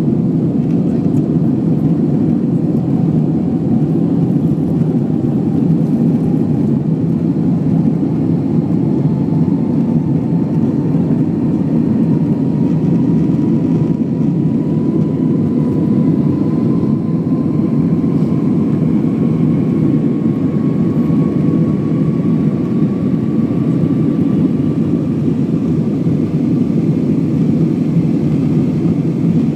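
Airbus A320 jet engines running, a loud steady roar with a thin whine that rises slowly in pitch throughout.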